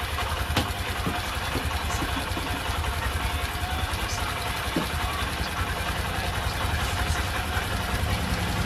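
A motorcycle engine idling steadily, with a single sharp click about half a second in.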